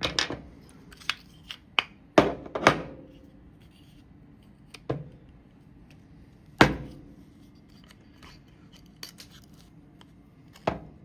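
Metal rifle parts clicking and clacking by hand: a KIDD bolt and charging handle being worked into a Ruger 10/22 receiver. Irregular light ticks with a few sharp clacks, the loudest about two and a half and six and a half seconds in.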